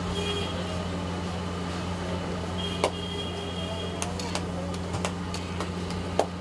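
Steady low hum of the stall's burners under the iron frying pans, with several sharp metal clinks of a skimmer and a blade against the pans, the loudest about three seconds in and just before the end.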